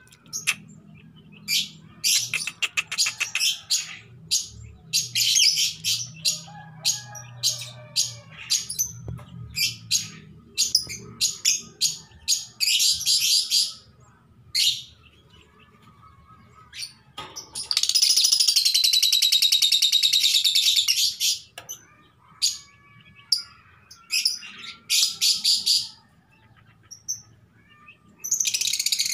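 Female Fischer's lovebird calling in repeated bursts of high-pitched chirps and chatter, with one longer unbroken trill of about three seconds a little past the middle. These are the calls of a hen in breeding condition inviting a male to mate.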